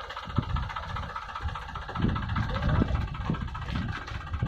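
Tractor diesel engine running steadily while the infielder's hydraulically raised hopper tips sugarcane into a truck.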